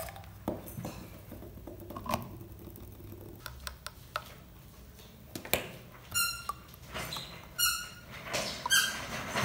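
Plastic bottle, pump cap and spray-machine tank lid being handled: a few sharp clicks and knocks, then three short high squeaks of plastic rubbing on plastic in the second half.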